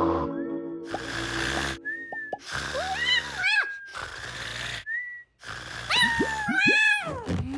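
Cartoon snoring sound effects: rough, rasping snores alternating with sliding whistle tones, the whistles rising and falling, repeated about four times.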